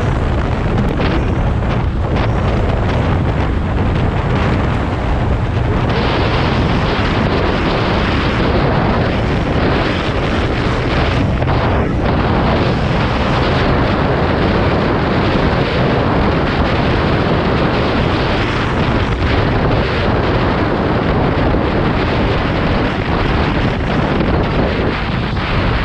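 Wind buffeting the microphone of a moving motorbike: a steady, loud rush with heavy low rumble.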